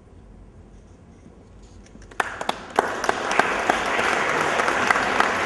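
Audience applause: a few scattered claps about two seconds in, quickly swelling into steady clapping from many hands.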